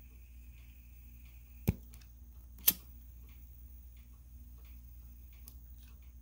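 A hand-held lighter clicking twice, two sharp clicks about a second apart, against a quiet steady low hum.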